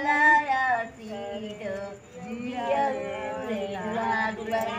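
A woman singing a long, drawn-out, chant-like melody, holding each note for a second or more.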